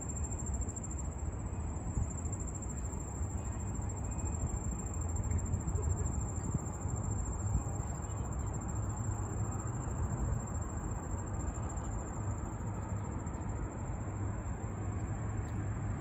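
Steady outdoor background noise: a low rumble with a constant thin high-pitched tone above it.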